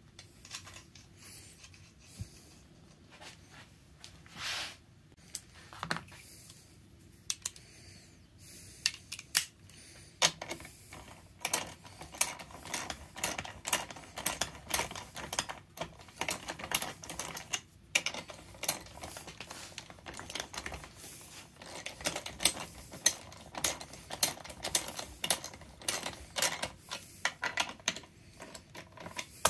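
Small socket ratchet clicking as it runs down the bar nuts on a chainsaw. The clicks are sparse with a few metal clinks at first, then come in quick, steady runs from about ten seconds in.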